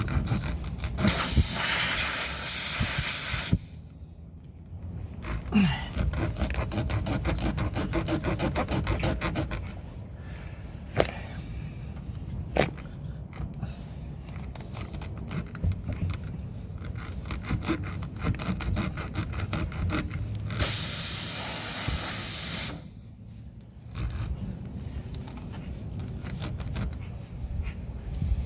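Tyre repair rasp (T-bar reamer) worked up and down and twisted in a tyre puncture, making rapid repeated scraping strokes. Air hisses out of the punctured tyre twice: about a second in, for a couple of seconds, and again about 21 s in.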